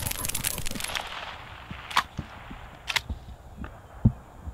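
Two sharp, distant gunshots about a second apart, fired in the field of a retriever hunt test.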